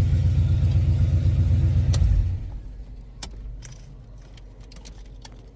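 Car engine idling steadily, then shut off about two seconds in: a sharp click and the rumble stops. A few light clicks follow.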